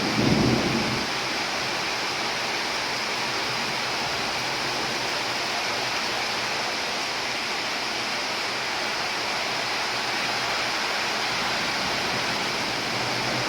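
Steady heavy rain, an even hiss of falling water. A low thunder rumble fades out about a second in.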